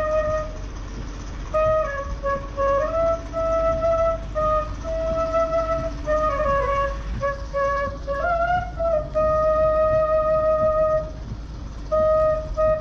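Bansuri (bamboo flute) melody as background music: a slow line of long held notes that glide between pitches, with a short break near the end.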